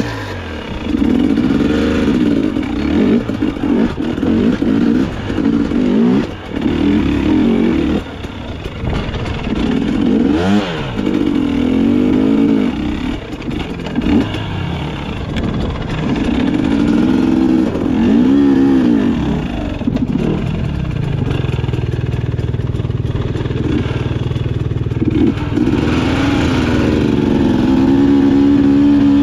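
Dirt bike engine revving up and down repeatedly as it is ridden slowly up a steep technical climb. Its pitch swells and drops every few seconds, runs steadier and lower for a while past the middle, and holds a higher steady pitch near the end.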